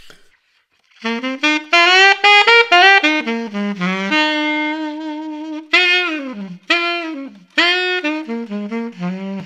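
Alto saxophone played solo, a quick bluesy blues-scale lick that starts about a second in, holds one longer note in the middle and ends on notes stepping down, resolving onto the major third of the key.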